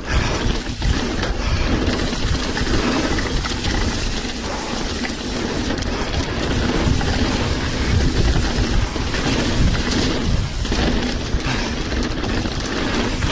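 Mountain bike ridden fast down a rocky trail: tyres rumbling over stones, chain and frame rattling, with a few sharper jolts, and wind buffeting the action camera's microphone.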